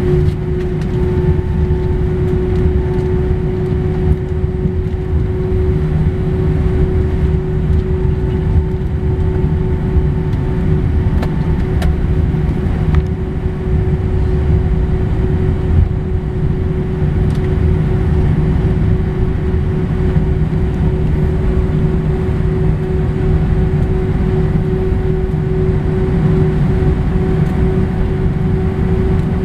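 Airbus A319 jet engines at taxi power, heard inside the cabin from a seat over the wing: a steady drone with one constant tone running through it.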